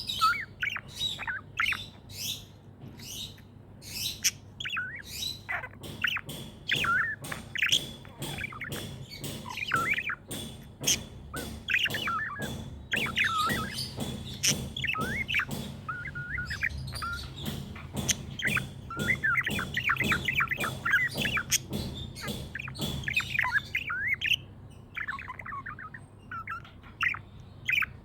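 Budgerigars chirping and chattering, with dense overlapping warbles, sharp chirps and clicks, busiest through the middle and thinning near the end.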